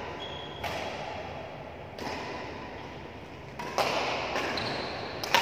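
Badminton rackets striking a shuttlecock in a doubles rally: several sharp hits, roughly one every second and a half, each echoing in a large hall.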